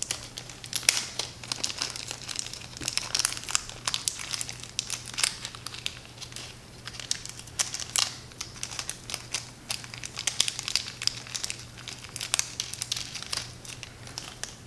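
Irregular small clicks, taps and crinkly rustling from screws and washers being handled and fitted into a carbon fibre frame base plate by hand, over a faint steady low hum.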